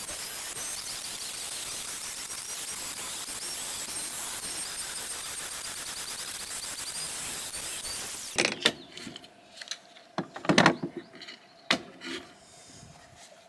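A power tool cuts a ceramic floor tile with a steady grinding hiss for about eight seconds, then cuts off. It is followed by several sharp knocks and taps as the trimmed tile is set down and tried in place.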